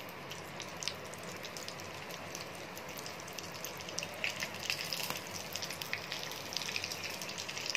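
Hot ghee sizzling in a small pan with cumin seeds and garlic frying in it, as for a tadka; a steady sizzle with small crackles that come thicker and louder from about four seconds in.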